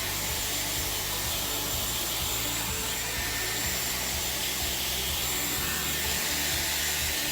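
Dyson Airwrap hair styler running steadily: a rush of air with a thin high-pitched whine from its motor.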